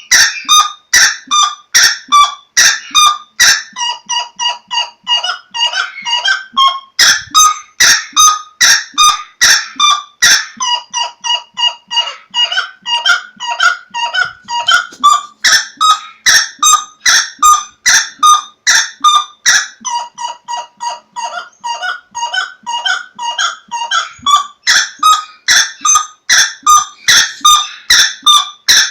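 Loud honking bird calls in a rapid, unbroken series, about three a second.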